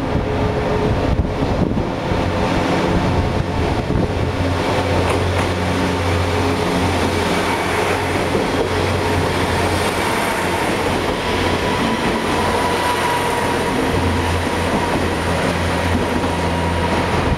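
JNR-built KiHa 47 diesel railcar pulling out and running close past, its diesel engine working under power as it gathers speed, with the wheels rolling on the rails.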